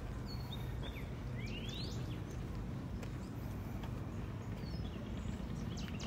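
Outdoor ambience: a steady low rumble with birds chirping and whistling now and then above it, including one rising whistle about one and a half seconds in.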